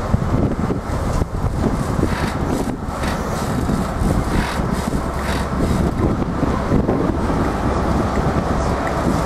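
East Coast InterCity 125 (HST) train of Mark 3 coaches running past on the rails: a steady rumble with repeated wheel clicks over rail joints.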